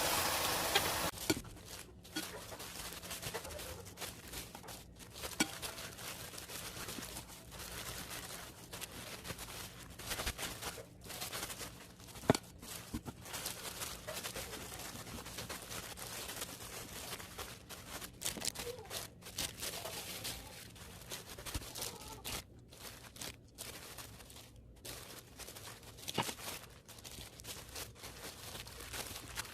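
Home kitchen handling sounds: a rush of running water that stops about a second in, then scattered light clicks and taps with rustling and crinkling as food is prepared.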